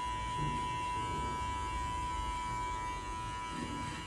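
Electric hair clipper with a guard running with a steady high whine while cutting short hair.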